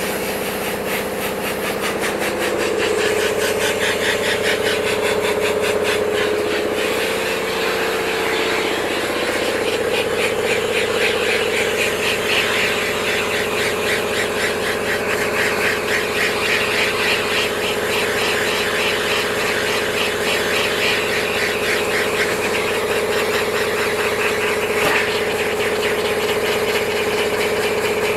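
A motor or engine running steadily: a constant hum whose pitch wavers for the first several seconds and then holds, with a fast rhythmic pulsing over it.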